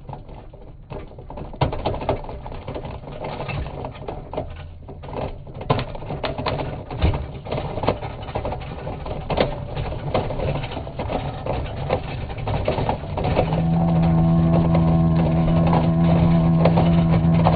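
Slowed-down audio of a hoverboard go-kart rolling over asphalt: a deep, stretched rumble with scattered clicks and knocks. About three-quarters of the way through, a steady low hum with overtones takes over.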